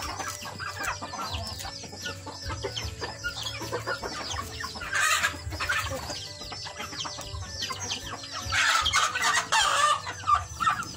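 Backyard chickens clucking and chirping without pause, a dense run of short falling calls, growing louder about five seconds in and again near the end.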